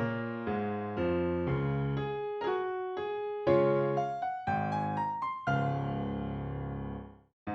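Background music: an electric piano playing a melody of struck notes, settling on a held chord that cuts off abruptly near the end, with a brief gap before the music starts again.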